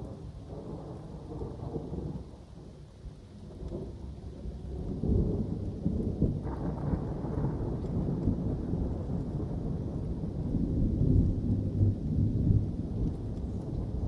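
Thunder rolling in a long, low rumble that swells in several waves and grows louder through the second half, over steady rain.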